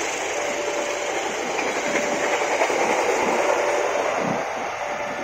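A passenger train's coaches and rear baggage van running past, steel wheels clattering on the rails, the noise easing near the end as the last car goes by. A short steady tone repeats about every second and a half: a level-crossing warning signal still sounding.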